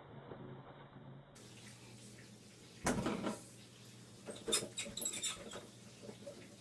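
A cat pawing toilet paper off a wall-mounted roll: a thump about three seconds in, then bursts of scratchy paper rustling and clicking as the roll is batted.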